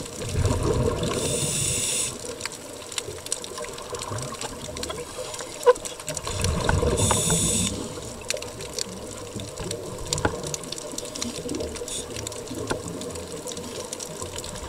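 Scuba diver breathing through a regulator, heard underwater: two breaths about six seconds apart, each a hiss with bubbling. A sharp click about halfway through.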